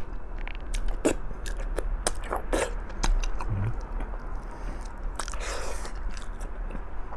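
Close-miked chewing with wet smacks and clicks, a person eating braised pig's trotters (balbacua) with rice. There is a short low hum about three and a half seconds in.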